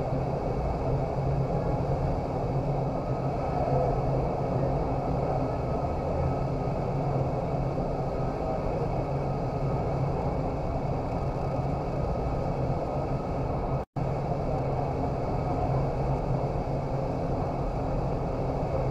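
Vertical wind tunnel running at body-flight speed: a steady rush of air with a constant low hum from the fans, heard from inside the flight chamber. The sound cuts out for an instant once, about three-quarters of the way through.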